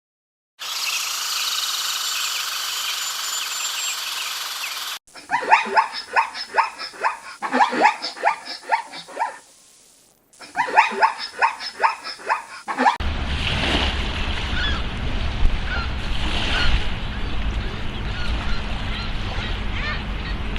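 Ducks quacking in rapid runs of repeated calls, in two bouts with a short break. Before them comes a steady high hiss, and after them a noisy outdoor background with a low rumble and occasional calls.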